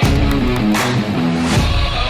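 Background music with a strong beat, bass line and guitar.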